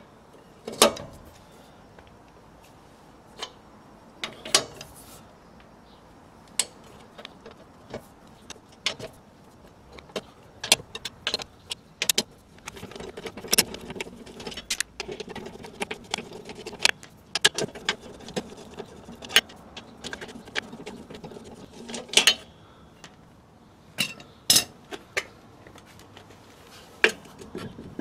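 Wheel nuts on a steel car wheel being undone and taken off with a socket wrench: scattered sharp metallic clicks and clanks of the socket on the nuts and of the nuts coming off the studs, with a busier run of quick clicking in the middle.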